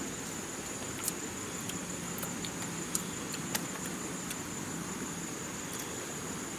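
Insects chirring with a steady high-pitched tone, with a few faint clicks along the way.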